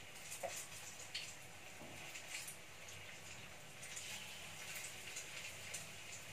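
Banana-fritter batter frying in hot oil in a wok: a steady sizzle with scattered small crackles.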